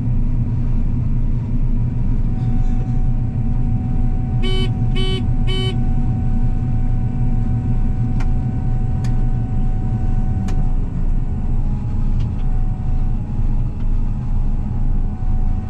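Combine harvester's engine running steadily, with three short beeps about half a second apart some four and a half seconds in.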